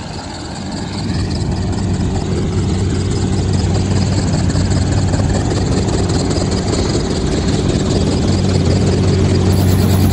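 Small helicopter's engine idling on the ground: a steady drone that grows louder over the first couple of seconds, then holds.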